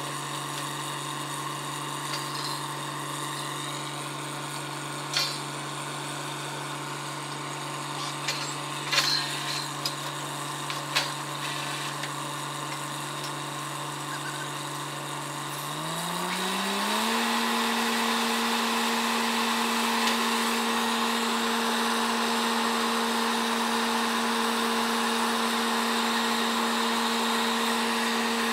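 Truck-mounted borewell drilling rig's engine running at a steady speed, with a few sharp metal clanks around the middle. About sixteen seconds in it revs up over about a second to a higher pitch and holds there, running louder.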